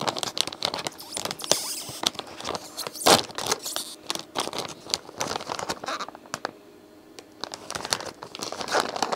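Shiny plastic blind bag crinkling and crackling as it is torn open along the top, with one louder rip about three seconds in. The plastic rustles as hands dig inside, then the crackle eases for a moment before picking up again.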